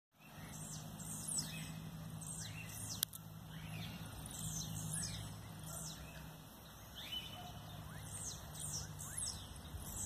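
Blue-black grassquits (tiziu) singing short, high, falling notes again and again, several birds answering one another in a territorial contest between young birds and the dominant adult male. A low steady hum runs underneath, with one sharp click about three seconds in.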